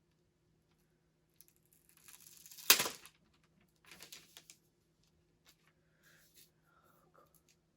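Packaging of an Apple Magic Keyboard being torn open: a rustle that builds to one sharp rip nearly three seconds in, then a shorter rustle and a few light clicks.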